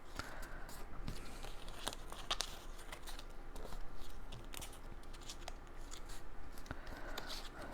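Cardstock being folded and creased by hand: soft rustling with scattered small crackles and taps as the paper pieces are bent and pressed flat.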